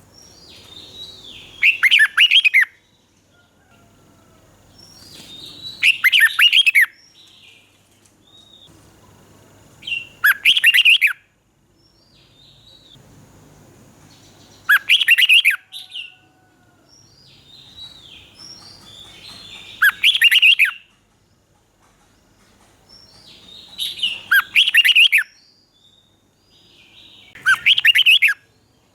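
Red-whiskered bulbul singing: seven loud, bright song phrases of about a second each, repeated every four to five seconds, with fainter short calls between them.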